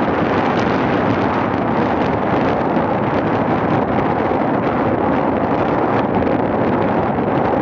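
Steady, loud wind noise buffeting the microphone, with no distinct blasts or impacts.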